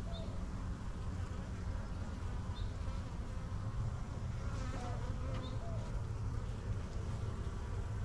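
Honey bees buzzing in a steady hum around a frame lifted from an open hive. The colony is calm, with few bees flying.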